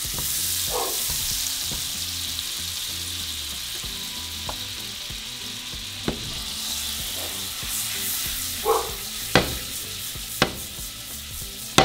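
Butter melting and foaming in hot oil in a frying pan, with a steady sizzle. A few sharp clicks sound over it in the second half.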